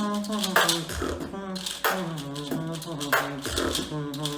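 Vocal beatboxing: sharp mouth-made drum hits about every second and a half, under a hummed, wordless melody line.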